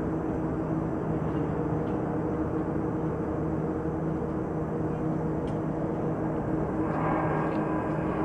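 Steady low drone of distant heavy engines working in an open-cut mine pit, with a held hum underneath. It grows slightly brighter and louder near the end.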